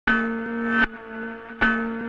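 Music: the opening of a song, two loud held chords of just under a second each, cut off sharply, with quieter sustained notes between them.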